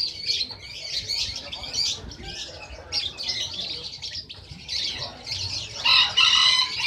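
Sunbird song: a rapid, continuous twittering of high chirps, getting louder about six seconds in.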